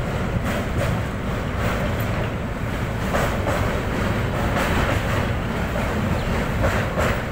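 Train running across a steel truss bridge, heard from on board: a steady rumble of wheels on rails, with the wheels clattering about twice a second.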